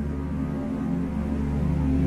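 Soundtrack music: low held tones swelling steadily louder.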